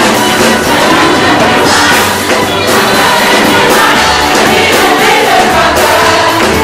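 Live gospel music: a choir singing over loud band accompaniment with a steady drum beat.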